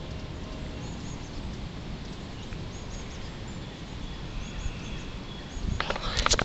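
Outdoor ambience as a thunderstorm approaches: a steady low rumble with faint bird chirps high above it. Near the end comes a short cluster of sharp clicks and knocks.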